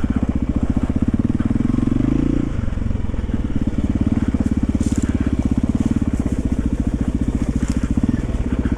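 1991 Yamaha XT350's single-cylinder four-stroke engine running under way with its steady thump, easing off about two and a half seconds in and pulling again a second later, with another brief let-off near the end.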